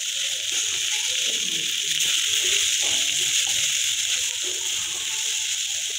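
Potatoes sizzling steadily as they fry in a wok on a gas stove, with a spatula stirring and scraping through them.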